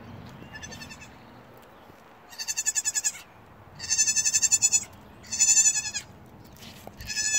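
Nigerian dwarf goat kid bleating: a faint call about half a second in, then four loud, high-pitched, wavering bleats, each under a second long and about a second and a half apart.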